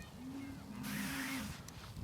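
A cow mooing: one long low call that rises at the start and falls away near the end.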